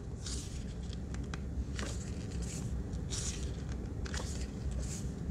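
Glossy paper pages of a K-pop album photobook being turned by hand, a soft swish about every second.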